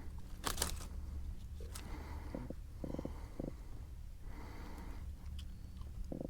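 A drum fish held out of the water croaking in short, low, pulsed grunts, a few at a time, over a steady low rumble of wind on the microphone, with a couple of sharp handling clicks about half a second in.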